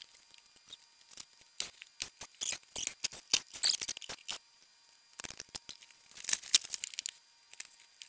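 Crackling and rustling of old carpet being pulled back and handled, with quick scattered clicks in two spells, one starting about a second and a half in and another about five seconds in.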